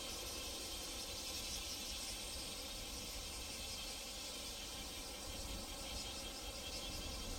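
Insects chirping in a fast, steady pulsing rhythm over the low, distant rumble of a jet airliner's engines as it climbs away after takeoff.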